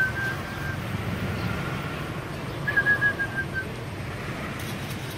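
Two runs of short, high whistled notes, the louder second run about halfway through and falling slightly in pitch, over a steady low background rumble.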